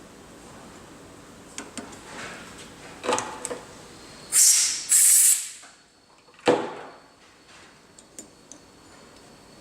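Work on a carburetor body while its threads are tapped: light clicks of metal tools, two short loud hisses of compressed air a little past four seconds in, and one sharp knock about six and a half seconds in.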